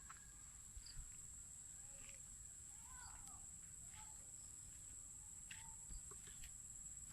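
Faint rural ambience: a steady high-pitched drone of crickets, with a few faint short chirps from distant birds.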